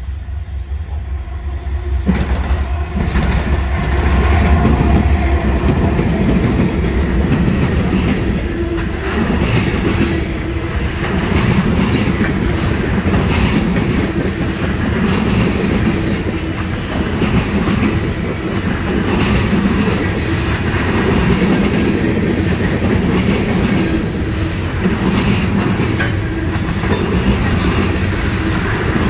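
Freight train passing close by: a deep diesel locomotive rumble in the first couple of seconds, then a long string of loaded trash cars rolling past with a steady clickety-clack of wheels over rail joints and rattling car bodies.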